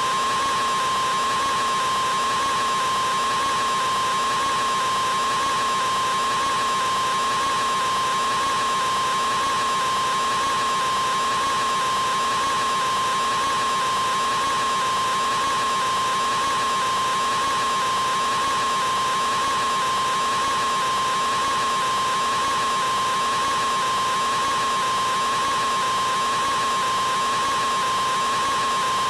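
A man's scream drawn out into one unbroken, unchanging high-pitched wail with no pause for breath, artificially prolonged.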